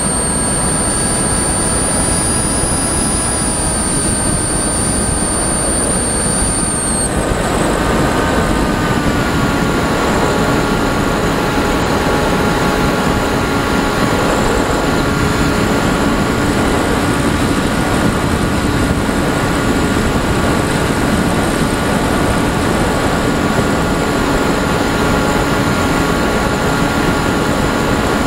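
Electric motor and propeller of an RC FPV aircraft running steadily in flight, a whine over a constant rush of air. About seven seconds in, the higher whine drops out and the motor tone steps down slightly, as the throttle is eased.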